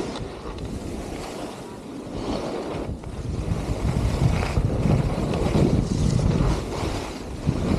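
Wind rumbling on the microphone while skiing downhill, with skis hissing and scraping over packed snow; it swells louder about halfway through.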